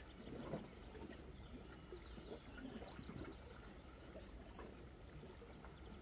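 Faint lapping and trickling of small sea waves against shoreline rocks: soft, irregular splashes over a steady low rumble.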